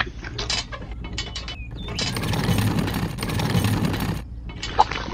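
Light clicks and clacks of a small plastic toy cement mixer and toy wheelbarrow being handled. From about two seconds in comes a rough scraping, sliding noise lasting about two seconds as wet mortar is tipped out of the wheelbarrow.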